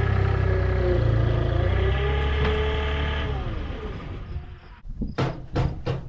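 Vehicle engine running with a whine that rises and falls in pitch, fading out about three and a half seconds in. A few sharp knocks follow near the end.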